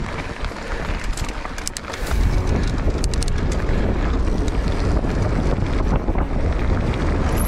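Wind buffeting the action camera's microphone while riding a mountain bike, with scattered clicks and rattles; the low rumble gets louder about two seconds in.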